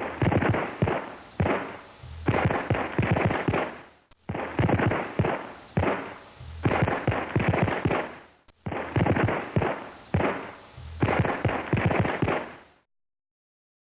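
Firecracker sound effect: a rapid string of sharp pops and bangs lasting about four seconds, played three times in a row.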